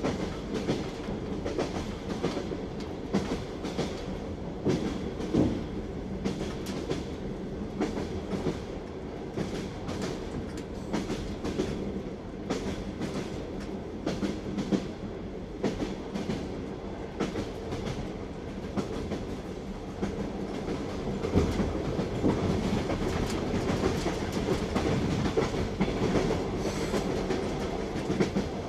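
Train wheels clattering over rail joints (clickety-clack) under a steady rolling rumble, growing somewhat louder about two-thirds of the way through.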